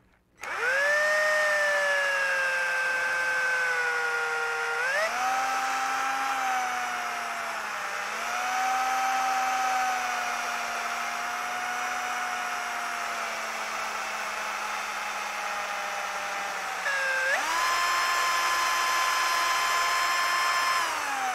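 Electric drill turning a very small bit held in a pin vise, boring a hanging hole into a small turned wooden bell of hard wood. The motor whine starts just after the beginning, steps up in pitch twice as the speed changes, and winds down at the end.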